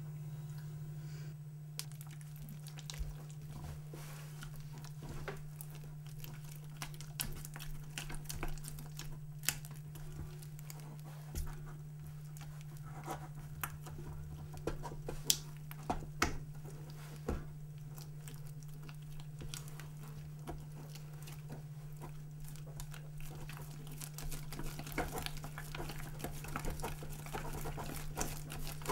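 A utensil stirring and scraping in a pan of bioplastic mixture as it cooks from liquid to gel, with irregular small clicks and scrapes, over a steady low hum.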